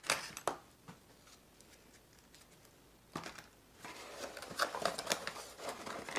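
Soldering-kit parts clattering as they are put back into a cardboard box, then the box's lid closed and the box handled and pushed aside, with cardboard rustling and scraping. A few sharp clacks at the start, then a busier run of rustles and knocks from about four seconds in.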